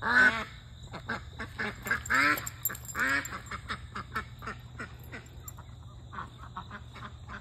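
A flock of ducks quacking while a puppy chases them: a few loud, drawn-out quacks in the first three seconds, then a quicker run of shorter, fainter quacks.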